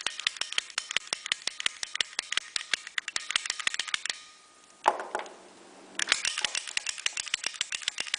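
Manual lock pick gun (snap gun) being triggered again and again, about eight sharp snaps a second, its pick striking the pins of a padlock. The snapping stops for about two seconds midway, broken by one short knock, then resumes.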